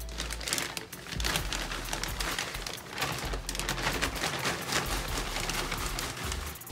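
A plastic bag of aspen shavings crinkling and rustling as the shavings are shaken out onto loose soil in a plastic tub: a dense, irregular crackling.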